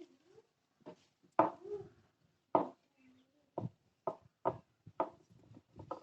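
Irregular sharp clicks and knocks of small tools and parts being handled on a workbench, about a dozen, the loudest a little over a second in and a quicker run of them in the second half.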